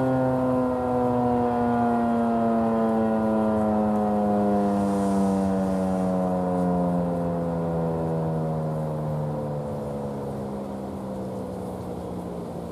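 Federal Signal 2001-SRN rotating outdoor warning siren winding down at the end of its test, its tone falling steadily in pitch and slowly fading.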